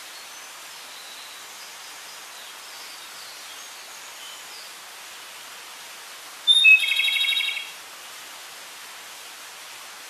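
Flycatcher (tledekan gunung) giving one loud call about six and a half seconds in: a short high note followed by a rapid trill lasting about a second. A steady hiss runs underneath, with a few faint high chirps.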